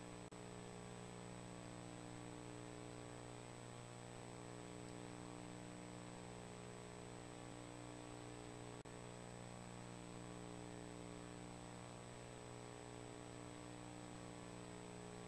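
Low, steady electrical mains hum with a thin high-pitched whine above it, and no other sound. The hum dips for an instant twice.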